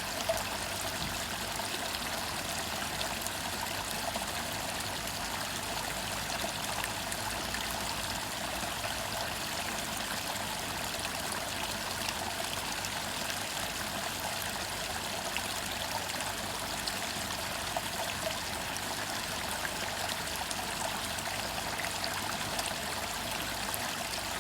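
Small artificial waterfall splashing steadily into a koi pond.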